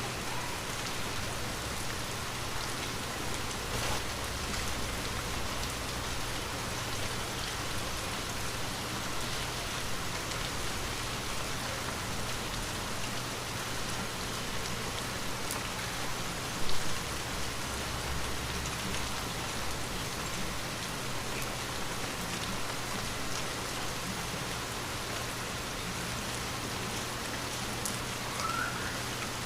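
Light rain falling steadily, a continuous patter with scattered individual drops. A single louder knock comes about halfway through.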